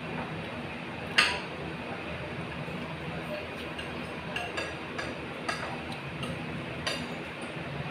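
Eating utensils clinking against a dish: one sharp clink about a second in, then a few lighter clinks later on, over a steady room hum.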